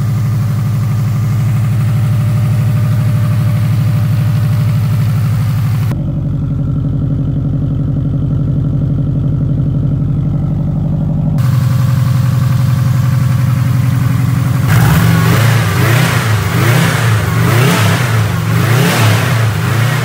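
Freshly rebuilt Subaru EJ207 2.0-litre turbocharged flat-four running steadily on its first start-up, with its tone changing abruptly twice. Over the last five seconds it is revved up and down in repeated blips.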